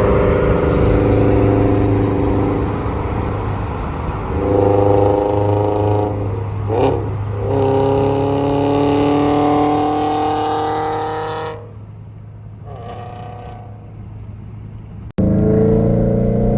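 Toyota GR86's flat-four engine, breathing through an unequal-length header, pulled at wide-open throttle: its note rises steadily through the revs, breaks briefly for a gear change about seven seconds in, and rises again. About twelve seconds in, the throttle comes off and the engine note drops.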